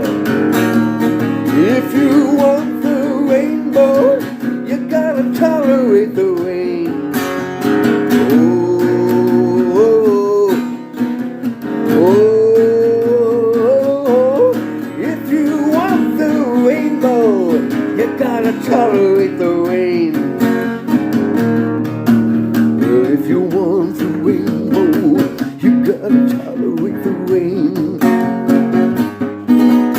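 Song with acoustic guitar strumming under a lead melody line that slides and bends in pitch, with no words sung.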